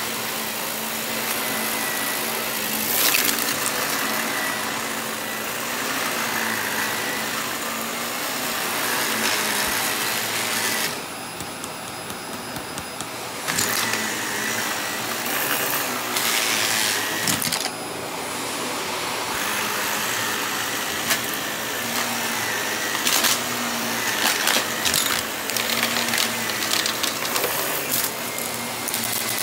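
Bagless upright vacuum cleaner running over carpet, its motor giving a steady whine, with scattered short clicks and rattles as bits of debris are sucked up. The sound goes duller for a couple of seconds about a third of the way through.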